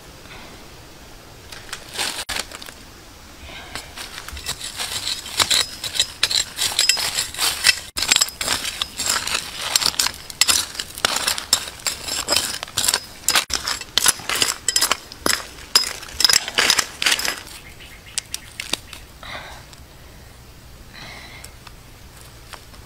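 Dry, gravelly soil being dug out by hand: a quick, uneven run of scrapes and gritty clicks of small stones, which stops a few seconds before the end.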